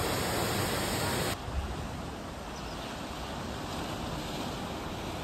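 Waterfall plunging into a pool, a steady rushing hiss, that cuts off suddenly about a second in to quieter ocean surf and wind.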